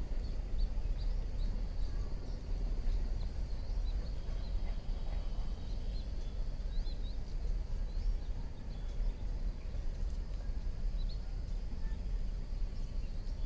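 Outdoor background: a steady low rumble, with small birds chirping now and then over a steady high insect drone.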